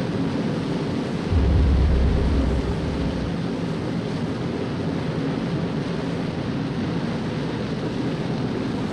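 Steady rushing ambience of wind and engine hum. A deep explosion boom comes about a second and a half in and rumbles on for about a second.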